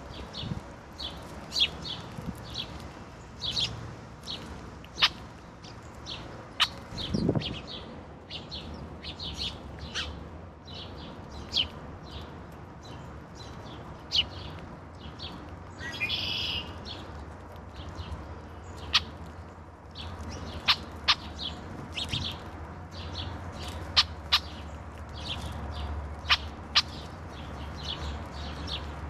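Several garden songbirds chirping and calling, with many short, high chirps overlapping throughout. A harsher, louder call comes about sixteen seconds in, with a few sharp clicks scattered through and a faint low rumble underneath.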